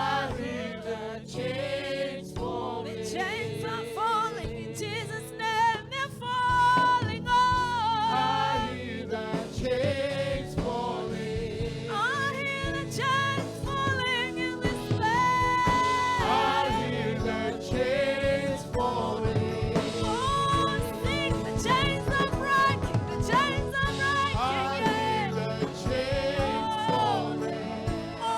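Gospel worship music: sung voices with long, wavering held notes over a steady instrumental backing.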